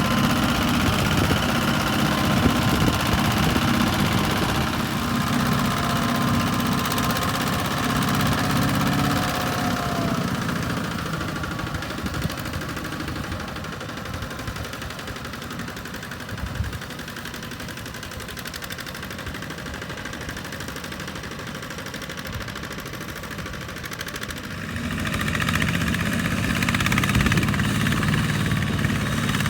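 Farm tractor's diesel engine running steadily, loud at first, fading for a stretch in the middle, then loud again about 25 seconds in.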